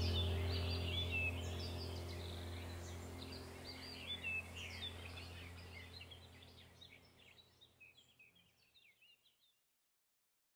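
Small birds chirping over a low steady hum, the whole sound fading away to silence about seven or eight seconds in.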